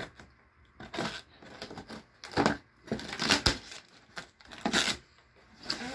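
Child-proof packaging being worked open by hand: a series of irregular crinkling and tearing noises, about one every second.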